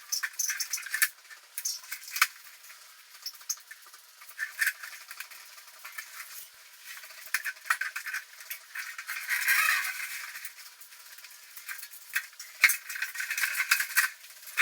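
Intermittent workshop handling noise: sharp clinks and rattles with stretches of scraping, as tools and metal parts are handled.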